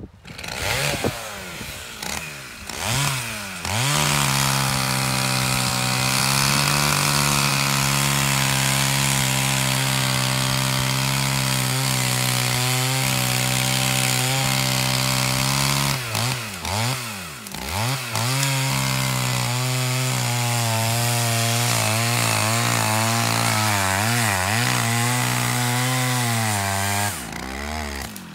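Two-stroke chainsaw revving up, then held at full throttle cutting into a birch trunk. Around the middle its note dips and wavers as the chain loads in the cut, then runs on high, and it falls back near the end.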